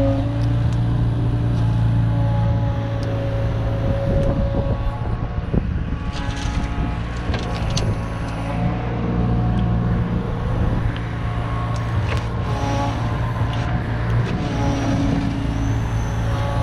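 Kubota KX71 mini excavator working: its diesel engine runs steadily under load while the hydraulics whine, the pitch shifting as the boom and bucket move. Scattered clanks and scrapes come from the bucket in soil, mostly in the middle and near the end.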